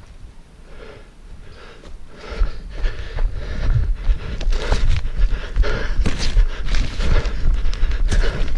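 A runner's footsteps on forest ground, with breathing and a low rumble of handling or wind close to the microphone. The strides start soft and turn louder and more regular about two seconds in, at about two to three steps a second.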